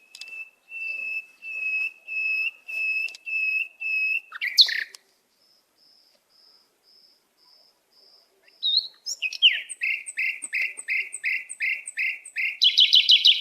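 A songbird singing: a run of evenly spaced whistled notes, about two a second, then a loud sweeping note about four and a half seconds in. After a few seconds of faint notes comes a fast series of short falling notes that ends in a quick trill.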